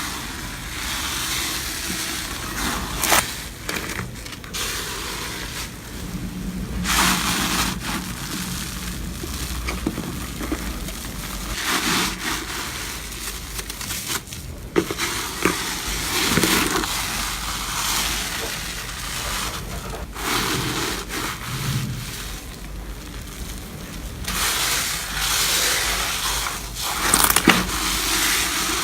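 Slime being pressed, poked and stretched by hand, giving irregular bursts of crackling and popping with a few sharper clicks.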